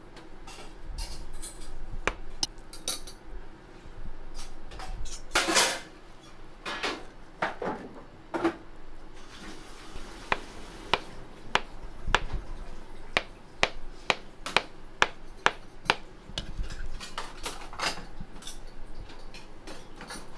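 Restaurant kitchen prep: dishes and metal utensils clinking and knocking, with a run of sharp, evenly spaced taps about two a second midway through.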